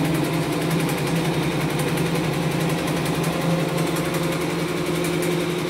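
Two-head, 12-needle CNY1202 computerized embroidery machine stitching flat embroidery: rapid, even needle ticking over a steady motor hum.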